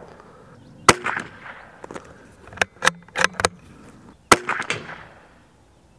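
Two shots from a RETAY Hunter .22 LR rifle, about three and a half seconds apart, each followed by a short echo, with a quick run of clicks between them.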